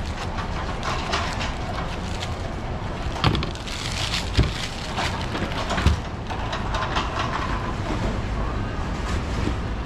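A large kitchen knife paring the rind off a hand-held pineapple in short scraping strokes, with three sharp knocks a little after the middle. A steady low rumble runs underneath.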